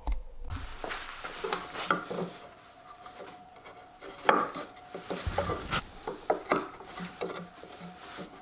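Small metal woodworking tools being handled against wood: an irregular run of clinks, taps and scrapes, with the sharpest knock about halfway through.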